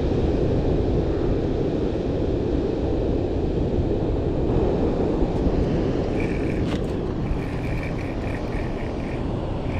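Steady wind rumble on the microphone over open water, with a faint, broken high tone coming in about six seconds in.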